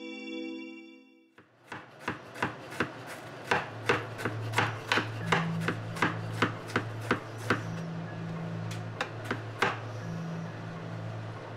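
Kitchen knife chopping onions on a countertop: a run of sharp knife strikes, about three a second, which stops about ten seconds in. A brief musical note sounds at the very start, and a low bass line of background music comes in about three seconds in.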